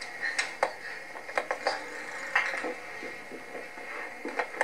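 A dozen or so scattered light clicks and knocks at irregular intervals, over a steady faint hum.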